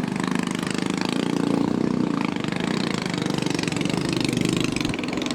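Boat engine running steadily with a fast, even beat.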